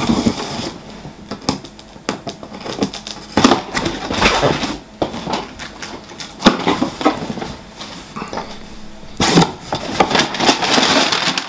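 Cardboard shipping box being opened by hand: its flaps pulled back, then hands rummaging inside, with irregular rustling and scraping of cardboard and a few sharp clicks.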